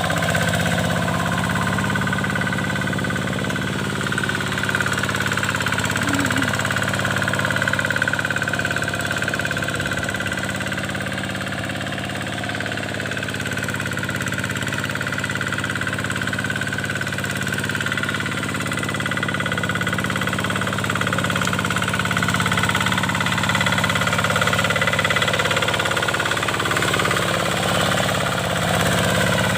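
Kubota single-cylinder diesel engine of a two-wheel hand tractor running steadily at a constant speed while it plows.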